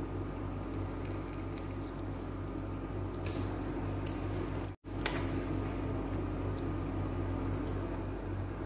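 Steady electrical hum with a low buzz and hiss from a glass-top electric cooktop heating a stockpot of water, with a few faint ticks. The sound cuts out for an instant just before five seconds in.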